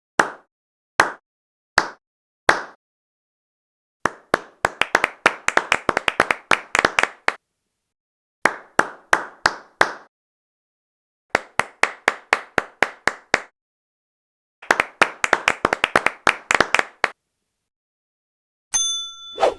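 One person clapping: four slow, single claps, then four bursts of quick clapping at about six claps a second, with short pauses between the bursts. A short ringing ding comes in near the end.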